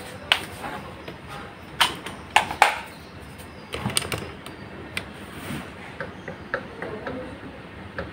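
Sharp knocks and clicks from a stand fan's bare motor shaft and wire guard being handled, the loudest in the first few seconds, then lighter clicks as the shaft is pushed in and out. The shaft has end play, moving back and forth in its bearings, the looseness that makes the fan noisy.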